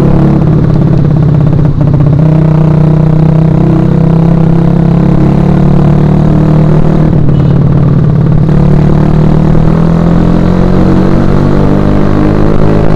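2011 Suzuki Shogun Axelo R motorcycle's single-cylinder four-stroke engine running loudly with a steady note that briefly changes about two seconds in and again around seven to eight seconds in.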